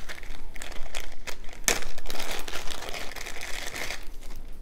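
Clear plastic zip-top bag crinkling as it is handled and opened, with one sharp click about one and a half seconds in.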